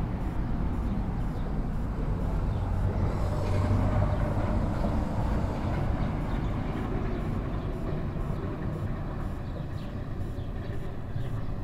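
A passing train, rumbling steadily with most of its sound low down, swelling to its loudest about four seconds in and then slowly fading.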